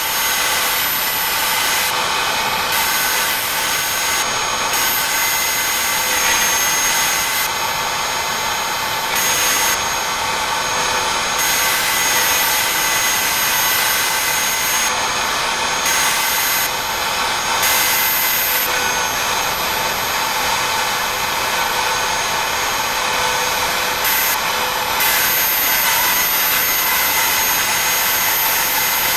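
DeWalt router spindle on a BobsCNC E3 desktop CNC running with a steady high whine as its V-bit carves star shapes into a painted wood panel. The cutting hiss eases off briefly several times while the whine carries on.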